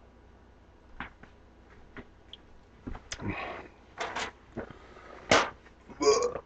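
A man drinking Sprite from an aluminium can: a few light clicks of the can, then a run of short gulping and breathing sounds, the loudest about five seconds in.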